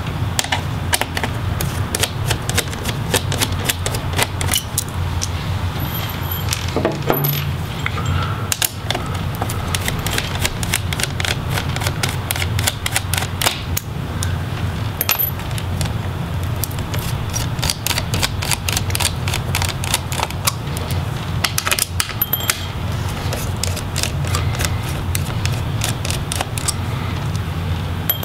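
Phillips screwdriver loosening and removing the small screws of a laptop's cooling fan and heatsink assembly: many small, irregular metal clicks and ticks, over a steady low hum.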